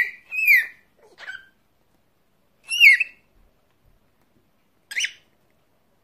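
Pet parrot whistling: about five short, clear whistled notes, most gliding down in pitch, with gaps of silence between them.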